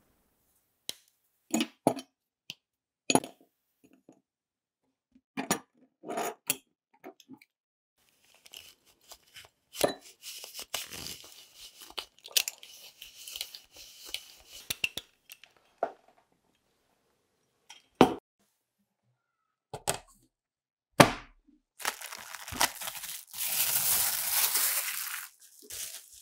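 A hand-cranked rotary drum grater shaving white chocolate: dry rasping of the chocolate against the turning metal drum for several seconds, set between sharp clicks and snaps as the chocolate is broken and the tools are handled. A louder stretch of scraping comes near the end.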